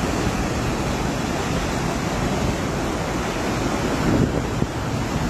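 Steady rushing noise of fast-flowing floodwater, with wind buffeting the microphone.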